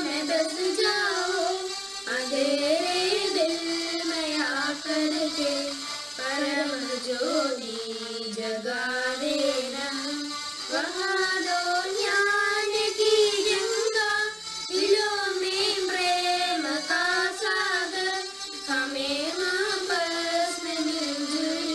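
A child singing solo, one voice carrying a winding melody with gliding, ornamented notes.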